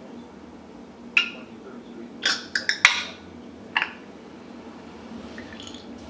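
African grey parrot making a handful of sharp clicking and clacking noises: one about a second in, a quick run of four just past the middle, and a last one soon after.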